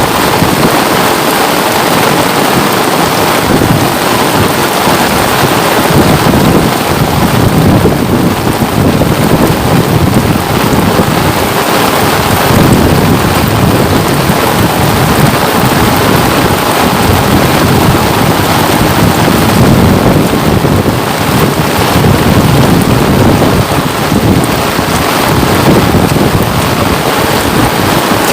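Steady, loud rain falling close by, with a low rumble underneath that swells and fades.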